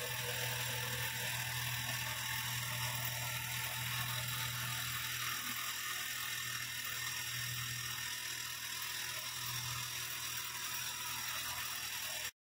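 Steady low hum with an even hiss of background noise, with no distinct events, cutting off abruptly near the end.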